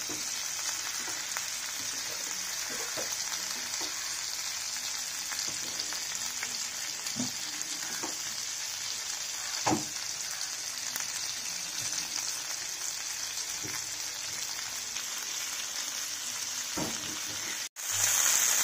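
Chicken tikka skewers sizzling in butter in a non-stick pan, a steady frying hiss with a few sharp spits and pops, the loudest just under halfway. The sound cuts out for an instant near the end.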